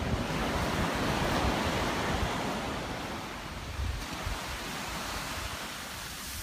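Surf washing onto a sandy beach, a steady hiss that swells early and slowly fades, with wind rumbling on the microphone.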